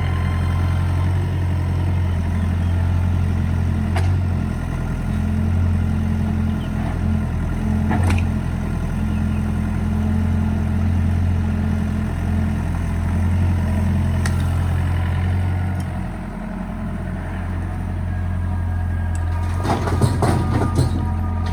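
Doosan excavator's diesel engine running steadily with a deep hum, with a few single sharp knocks. A burst of clattering knocks comes near the end.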